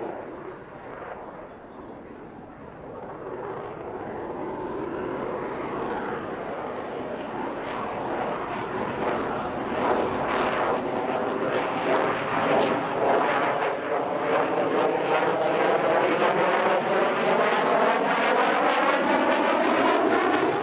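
F-35A Lightning II jet engine growing steadily louder as the fighter closes in, with a swooshing tone that slides down in pitch. From about halfway there is a rough crackle, with the afterburner lit near the end. The sound cuts off suddenly at the end.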